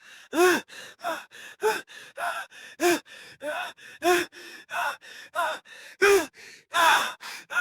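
A man panting hard and fast, out of breath and frightened. He takes short, voiced gasping breaths, about two to three a second, with louder gasps among softer ones.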